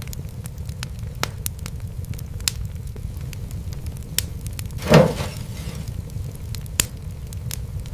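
Fireplace fire crackling over a steady low rumble, with scattered sharp pops. About five seconds in comes one louder crackling burst with a brief fading hiss.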